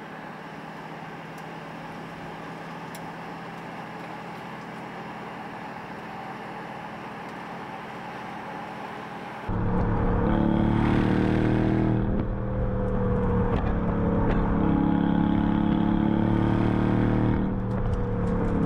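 Aston Martin DBX707's twin-turbo V8 running steadily. About nine and a half seconds in it suddenly becomes much louder, with a heavy low rumble, as the engine is put under load.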